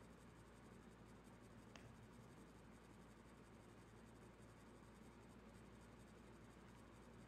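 Near silence: faint steady room tone, with one faint click a little under two seconds in.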